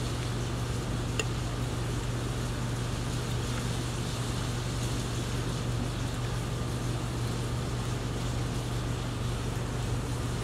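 Steady low hum with an even background hiss of room noise, and a single faint click about a second in.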